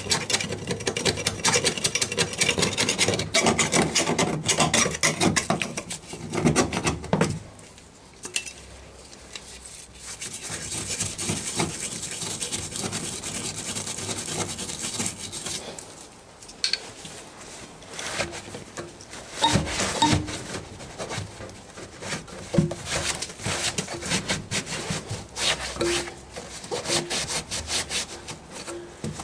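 Underseal being scraped by hand off the steel floor pan of a Rover P6, solvent-softened, in quick repeated strokes. The scraping is heaviest for the first seven seconds, then comes in shorter bouts with scattered clicks of the tool on the metal.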